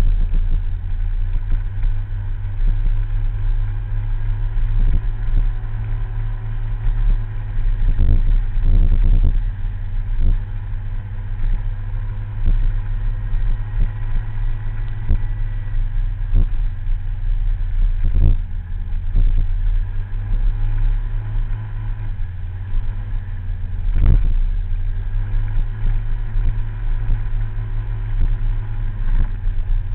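Scooter ride heard from a camera mounted on the scooter: wind buffets the microphone over the running of the small scooter engine. A few knocks come as it goes over bumps in the road, the loudest about three-quarters of the way through.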